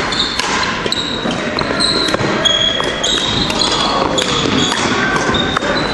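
Shoes squeaking repeatedly on a wooden sports-hall floor during a badminton doubles rally: many short, high squeaks as players push off and stop, mixed with sharp racket hits and footfalls.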